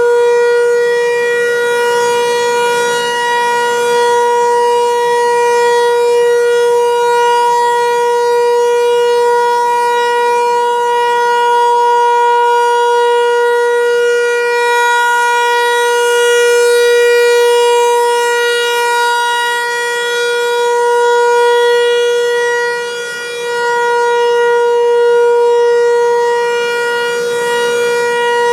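Federal Signal 508-128 outdoor warning siren sounding a steady, unchanging-pitch tone during a test. It swells and fades a little in loudness, with a brief dip about three quarters of the way through.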